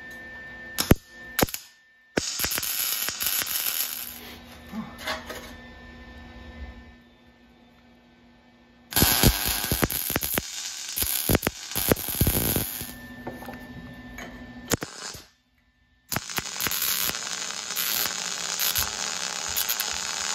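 Wire-feed (MIG) welder arc crackling as beads are laid on a steel car frame, in three runs of a few seconds each with short pauses between, over a faint steady hum.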